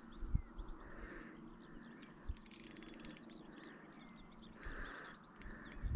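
Faint outdoor pond ambience: small birds chirping and frogs calling repeatedly, about once a second. Scattered clicks and low knocks come from the spinning reel and rod while a hooked fish is being played.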